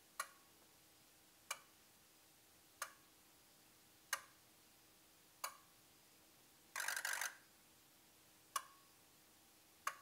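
Ford 6.0 Powerstroke diesel fuel injectors cycling in a key-on injector buzz test: sharp, evenly spaced clicks about every 1.3 seconds, each with a short ring, and one half-second buzz a little before the seven-second mark.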